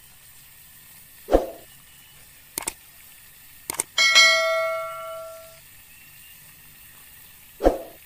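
Sound effects of an animated subscribe button: a thump, three quick mouse-style clicks, then a bell chime that rings out for about a second and a half, and a second thump near the end.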